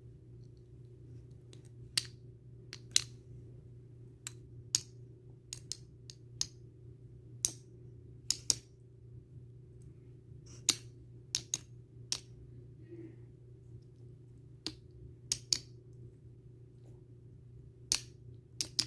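Sharp single clicks or snaps at irregular intervals, some in quick pairs, over a steady low hum.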